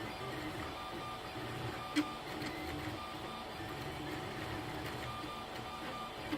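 3D printer's stepper motors whirring as the print head moves, in shifting tones over a steady hum, with one sharp click about two seconds in.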